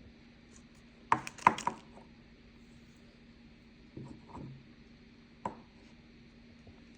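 Hard objects handled on a tabletop: three sharp knocks in quick succession about a second in, a softer clatter around four seconds, and a single click a second later, over a faint steady hum.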